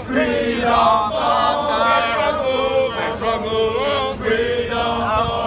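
Crowd of marching protesters chanting in unison, a sung protest call with long held notes.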